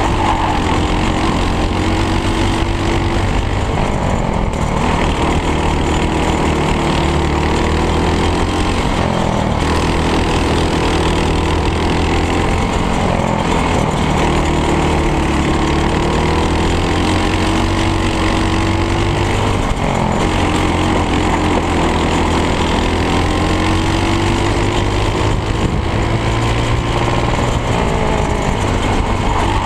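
Briggs & Stratton World Formula single-cylinder four-stroke kart engine at racing speed, its pitch climbing and dropping again and again as the kart accelerates out of the corners and slows into them.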